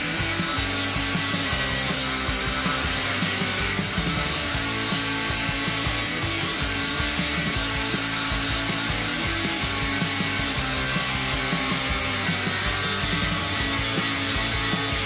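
A saw cutting through wood: a continuous rasping sawing noise with no pauses.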